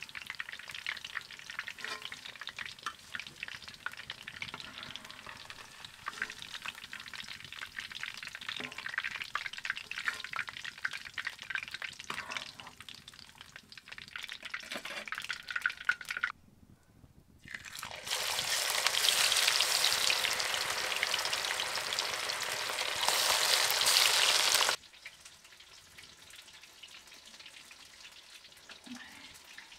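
Small fish deep-frying in hot oil in an iron kadai, a steady crackling sizzle with many small pops. After a short break about halfway, a much louder, denser sizzle runs for about seven seconds and then cuts off, leaving only a faint crackle.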